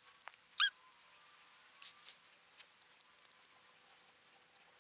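Mostly quiet, with a few short high-pitched chirps: one about half a second in and two close together about two seconds in, followed by a scatter of faint ticks.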